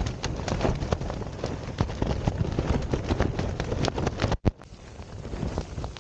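Pumori tent's flysheet flapping and snapping in strong wind gusts, a rapid crackle of sharp cracks over a low rumble of wind, with the storm bending the tent and its poles. About four and a half seconds in, the sound cuts out for a moment and comes back quieter.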